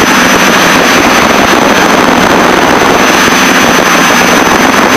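Steady, loud cabin noise of the Piper Seneca's twin piston engines, propellers and airflow in cruise flight, with a faint, even, high-pitched whine over it.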